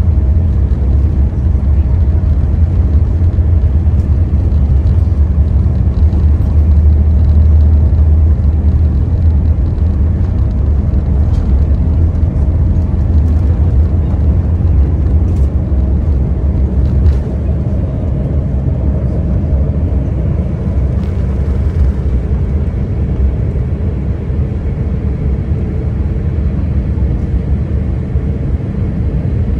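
Boeing 787-8 takeoff heard from the cabin: engines at takeoff thrust with a loud, steady low rumble from the runway roll and a few light knocks midway. The rumble eases about seventeen seconds in as the aircraft lifts off and climbs.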